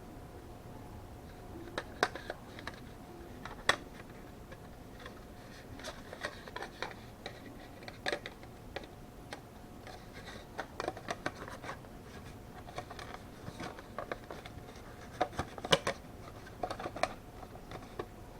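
Scattered clicks, taps and light scrapes of plastic and metal parts being handled inside an open desktop computer case. The sharpest knocks come about two seconds in, near four seconds in, and again near the end.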